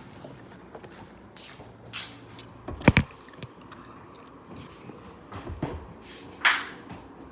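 Sharp clicks and knocks as a 2014 Nissan Pathfinder's inside door handle assembly is handled and fitted back into the door. The loudest is a quick double click about three seconds in, with another near the end.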